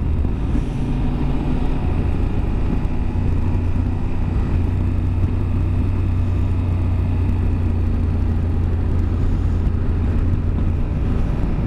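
Yamaha Super Ténéré adventure motorcycle's parallel-twin engine running at a steady cruising pace, with its pitch shifting slightly a couple of times, under a steady rush of riding wind.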